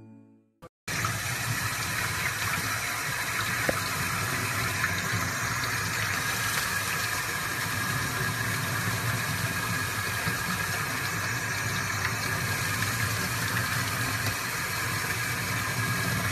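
Sink faucet running steadily, its stream splashing over a puppy being washed under it; it starts about a second in after a moment of silence.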